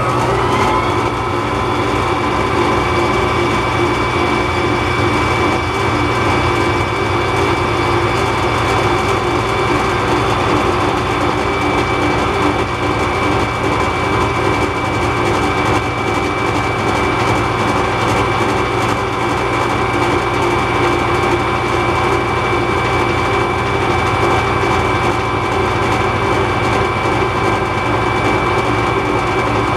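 MAS metal lathe running at a steady speed, its motor and gearing giving a steady hum with a high whine, while center-drilling the end of a length of all-thread rod.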